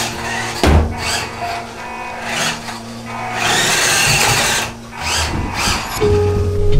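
WPL D12 RC kei truck driving: its small electric motor and gears whine, rising and falling with the throttle. There is a loud thud a little under a second in.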